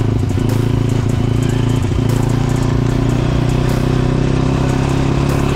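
Motorcycle engine running at a steady, even speed while riding.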